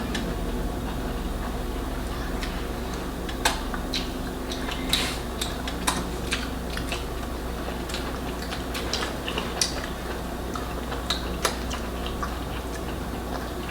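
Scattered light clicks and clinks of dishes and utensils as people eat at the table, over a steady low hum.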